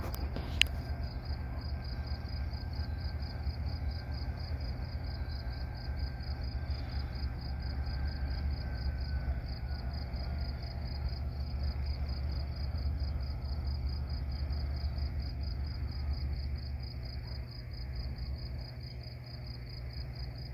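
Low, steady rumble of diesel locomotives on a train pulling in, easing off a few seconds before the end, with crickets chirping in a fast, even trill over it.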